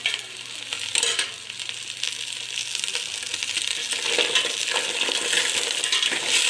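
Green mussels sizzling as they sauté in a pot, their shells clinking against one another and the pot as they are stirred about, with a sharp clack about a second in.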